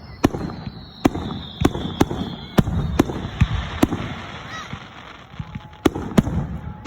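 Fireworks going off: a string of sharp bangs, about ten in seven seconds, each trailing a low rumble, with a high whistle falling slowly in pitch over the first two seconds.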